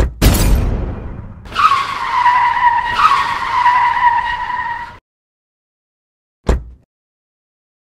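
Car sound effect: a short rush, then a steady high tyre screech lasting about three seconds that cuts off suddenly. A single dull thud follows about a second and a half later.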